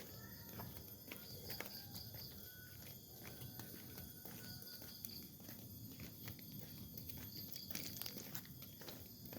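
Faint rice-field ambience: short clusters of high insect chirps about every three seconds over low rustling and scattered small clicks.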